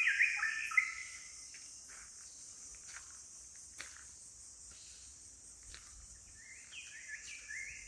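Forest insects keep up a steady high-pitched drone throughout. A bird sings a quick run of short, downward-sliding notes in the first second, and sings again near the end. A few faint clicks fall in between.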